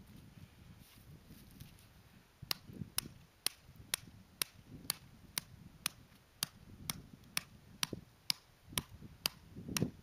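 A hand hammer striking a hollow copper earth pipe, driving it into hard, rocky ground. Sharp, even blows about two a second start a couple of seconds in.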